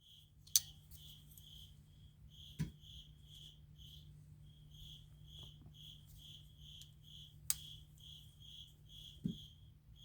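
A cricket chirping over a low hum, about three short high chirps a second. A few sharp clicks and knocks are louder than the chirping, the two loudest about half a second in and about seven and a half seconds in.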